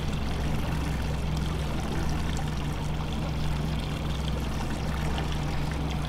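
Boat motor running steadily with a low, even hum, over a wash of water noise.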